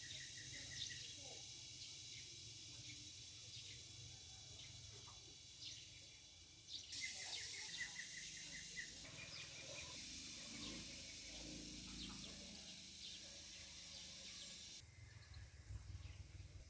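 Faint rural outdoor ambience: a bird's short, rapid chirping series near the start and again about seven seconds in, over a steady high-pitched buzz. The background changes abruptly about seven and fifteen seconds in.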